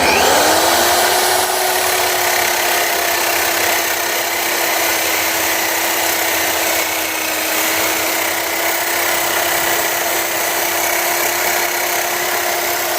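Electric drill fitted with a cutting disc spins up, its motor whine rising quickly and then holding a steady pitch, over a continuous grinding hiss as the disc cuts.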